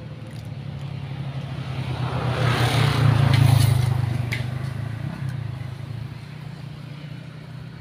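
A motor vehicle passing: a low engine hum with rushing noise that swells to a peak about three seconds in, then fades away.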